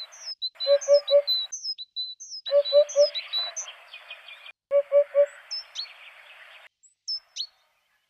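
Eurasian hoopoe singing its three-note 'oop-oop-oop' song, three phrases of three even hoots, while other birds give short high chirps between and over them.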